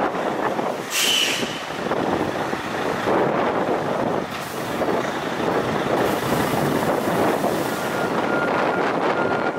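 Heavy Mercedes-Benz Actros tanker truck's diesel engine running as it pulls away, with a sharp air-brake hiss about a second in and another hiss a few seconds later. A faint steady beeping comes in near the end.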